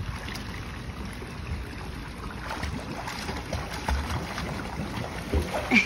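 Light splashing of a child kicking through a swimming pool, under a steady rumble of wind on the microphone.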